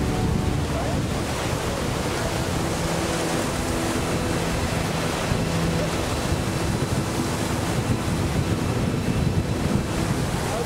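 Rough water with waves breaking and surging, and wind buffeting the microphone.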